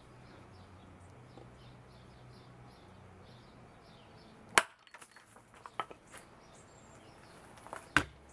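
A 1095 carbon-steel chopper blade chopping through a 16D steel nail laid on a brick: one sharp metallic strike about four and a half seconds in, followed by a few small clicks and another sharp knock near the end.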